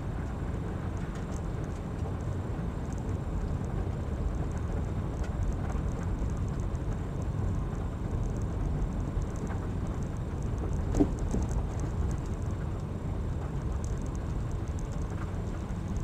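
Car cabin noise picked up by a dashboard camera while driving slowly: a steady low rumble of engine and tyres on a wet, gravelly street, with one brief knock about eleven seconds in.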